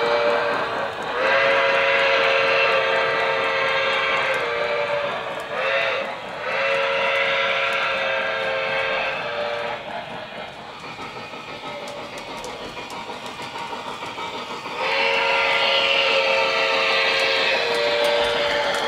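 Model steam locomotive's onboard sound system blowing its whistle in a series of long and short blasts. In a quieter stretch in the middle, the train rolls along with a steady clicking over the track.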